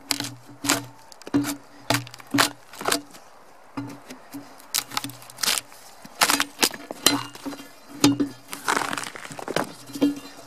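A Collins axe used as a bark spud, jabbed repeatedly along a log to peel off the bark: sharp chopping and scraping strikes about twice a second, irregular, with a longer tearing scrape about nine seconds in. The bark on the seasoned log comes away easily.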